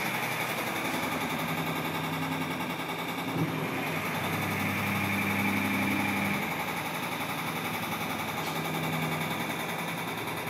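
Washing machine running, a steady motor hum with a fast rattling vibration and a low drone that shifts in pitch now and then.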